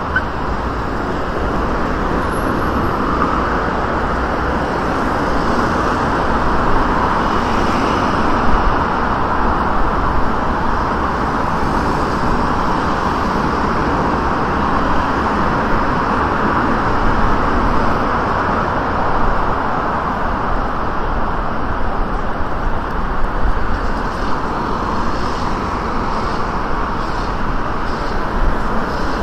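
Steady city road traffic noise, with cars passing close by and turning at an intersection.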